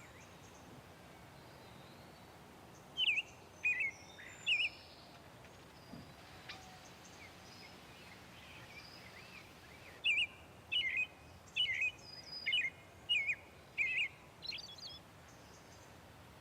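Bird chirping in short, bright notes: three about three seconds in, then a quicker run of about seven near the end, over a faint steady background hiss.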